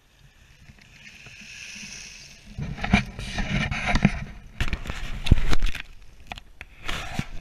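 Skis hissing and scraping over packed snow, soft at first, then louder and rougher from about two and a half seconds in, with sharp scrapes and a low rumble of wind on the microphone.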